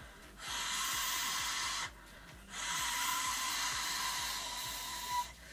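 A loud, steady hiss with a faint whistling tone in it. It comes in long stretches with short breaks, once about two seconds in, and stops shortly before the end.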